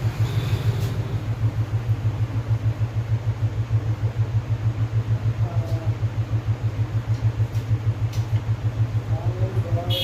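A steady low droning hum that throbs rapidly, several pulses a second, with a few faint light clicks.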